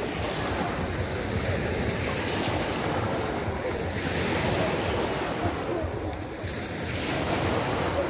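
Small sea waves breaking and washing up over a shelly sand beach, with wind buffeting the microphone.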